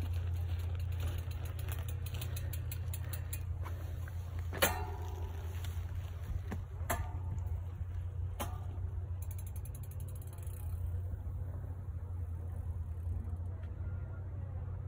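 Bicycle freehub ratchet ticking rapidly while coasting, with three sharp metallic clicks about two seconds apart in the middle, over a steady low rumble.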